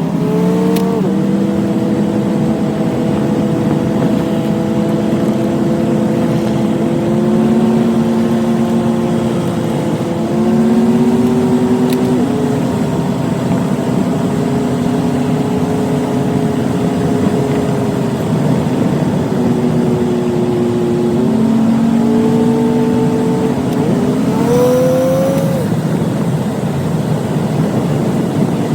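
1986 Buick Grand National's turbocharged 3.8-litre V6 running on the road on its factory exhaust, its pitch holding steady and then rising or shifting several times as the car accelerates and changes speed.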